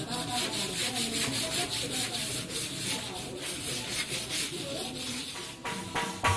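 Rhythmic rubbing strokes, several a second, like hand sanding or filing.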